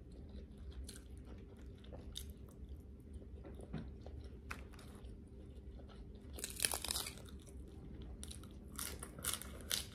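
Close-miked eating sounds: soft chewing with small mouth clicks, then loud crisp crunching from about six and a half seconds in as a raw romaine lettuce leaf is bitten and chewed.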